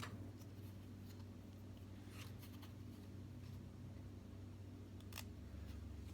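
Faint small clicks and rustles of hands working with a DSLR cage and its strap fittings, a few scattered over the seconds, over a low steady hum.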